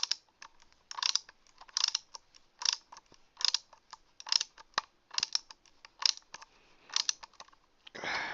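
Screwdriver bit turning tiny screws into a laptop hard-drive caddy, with clusters of small clicks repeating about once a second as the driver is worked back and forth. A short rustle near the end.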